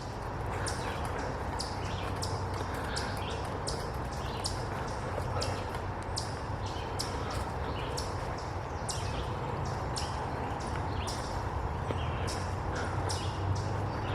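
Footsteps crunching on a dirt trail at a steady walking pace, a few steps a second, over a low steady rumble.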